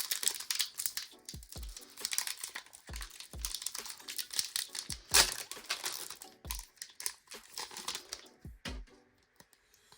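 Foil booster-pack wrapper crinkling and tearing as it is handled and opened by hand, with small thumps of handling; the crinkling dies down near the end.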